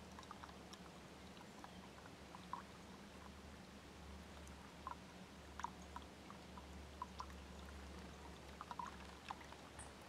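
Near silence: a faint steady low hum with scattered small ticks and clicks, a few more bunched together near the end.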